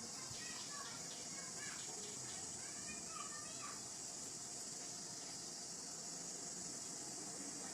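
Steady high-pitched insect drone, with a few short chirping calls over it in the first half.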